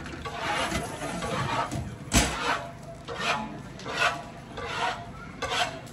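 Rhythmic scraping or rasping strokes, about one every three-quarters of a second, with one sharp knock a little over two seconds in.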